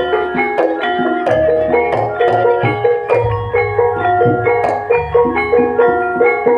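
Kendang drum strokes played with tuned mallet percussion: a busy, fast run of struck pitched notes over deep, repeated drum beats.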